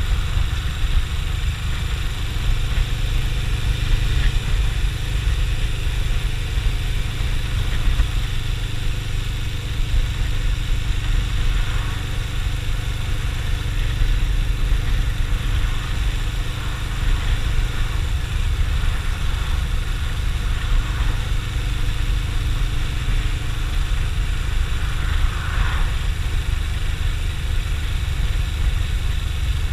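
Suzuki GS500E's parallel-twin engine running steadily at road speed, mixed with constant wind and road noise.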